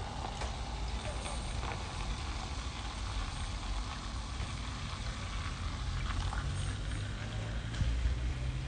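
Cola poured from a can into a stainless-steel beer-can chicken holder: a steady splashing and fizzing of the carbonated drink. A low rumble underneath grows stronger near the end.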